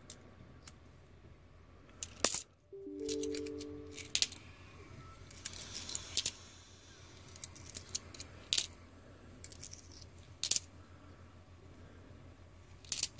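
Australian 20-cent coins clinking as they are handled and set down, a sharp clink every couple of seconds. A brief chord of low steady tones sounds about three seconds in.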